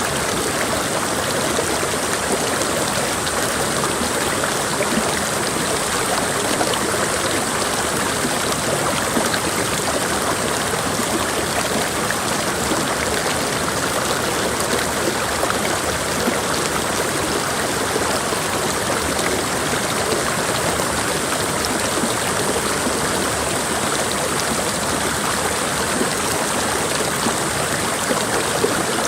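Mountain stream rushing over rocks, a steady, even water noise without breaks.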